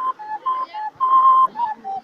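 A handmade prehispanic-style flute playing an improvised melody of short, pure, whistle-like notes. It rises to one longer held high note about a second in.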